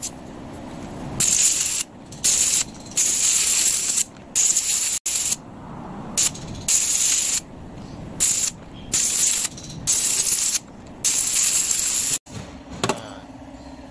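Air-line spray gun loaded with gasoline, fired in about a dozen short hissing bursts at a fuel injector to flush it clean. A single click comes near the end.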